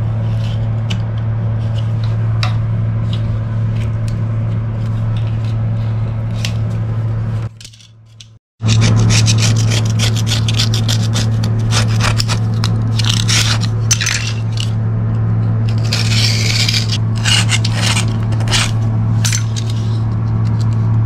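Old silicone sealant being scraped off a marble shower kerb: many short scraping strokes, cut off by a brief silence about eight seconds in and busier after it, over a steady low hum.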